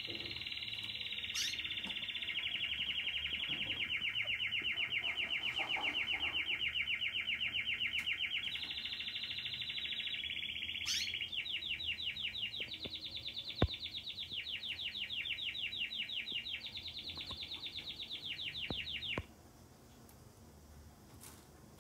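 Domestic canary (Belgian canary) singing a long song of rapid trilled rolls, switching to a new trill every few seconds and stopping abruptly near the end. A single sharp click sounds about midway through.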